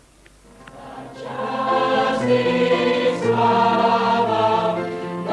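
A choir singing a hymn in long, held chords, swelling in about a second in.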